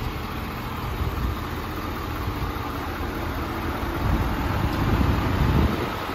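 Ford F650's 6.7-litre Power Stroke V8 diesel idling steadily, a low rumble that grows a little louder about four seconds in.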